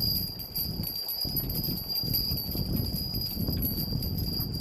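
Small hanging bells jingling and clinking as they sway in a draught, over a low, gusting rumble of wind.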